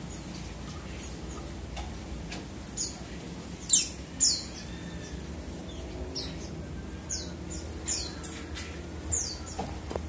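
Scarlet-headed flowerpecker (cabe jawa) giving short, high, sharp downslurred call notes, about eight of them at irregular intervals, the loudest a pair near four seconds in.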